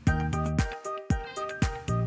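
Background music: a light instrumental with plucked notes.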